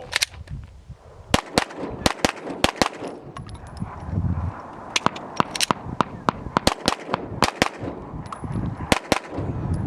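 Pistol gunfire from several shooters running the same drill at once: irregular strings of sharp shots, sometimes overlapping and sometimes paired, starting about a second in and stopping shortly before the end, with short gaps where shooters transition and reload.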